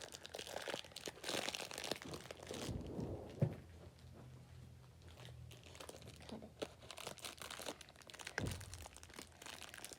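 Small plastic toy packaging crinkling, rustling and tearing as an accessory is unwrapped by hand, in uneven bursts with short pauses and a few light clicks.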